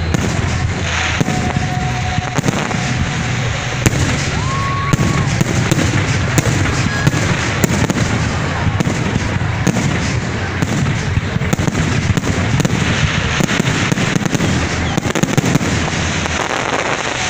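Fireworks display: aerial shells bursting in a dense, continuous run of bangs and crackles.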